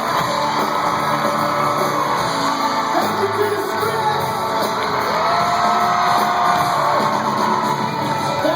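Live pop-rock band playing through a concert PA, a singer holding long notes over guitars and drums, with shouts and whoops from the crowd in the mix.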